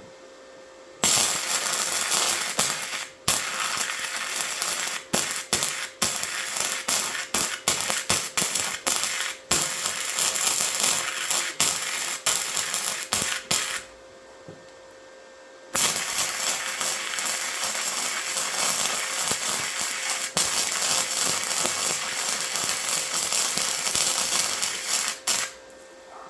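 Flux-core welding arc from a Titanium 125 wire-feed welder, crackling and popping through two long runs on scrap steel. The first run sputters and keeps breaking off; the second crackles more steadily. The welder himself puts the sputtering down to welding on rust.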